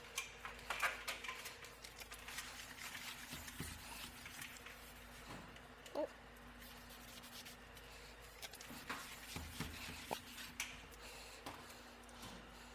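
Scattered small clicks, taps and rustles of hand work on a steam trap's parts, over a faint steady hum.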